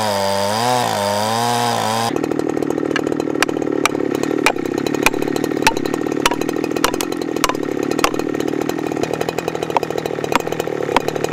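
A chainsaw cuts under load into very hard dead bloodwood, its engine pitch wavering. About two seconds in the saw drops to a steady run in the cut while a hammer taps a felling wedge into the kerf, about two sharp strikes a second.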